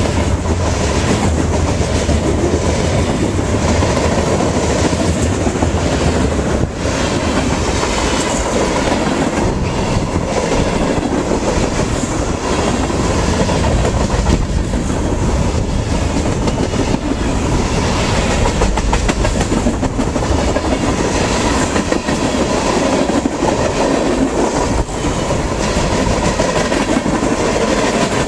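Freight train cars rolling past: a steady rumble of steel wheels on rail, with repeated clickety-clack as the wheels cross rail joints.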